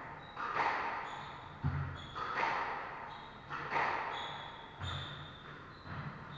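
Squash rally: the ball strikes rackets and walls about once a second, each hit echoing around the court, with short high shoe squeaks on the wooden floor and a few heavy footfalls between the hits.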